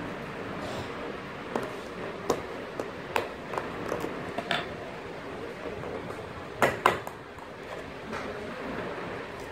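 Sharp clicks and taps of hard plastic as a battery is handled in the battery holder of a black plastic sublimation photo cube, with a louder pair of clicks about two-thirds of the way through.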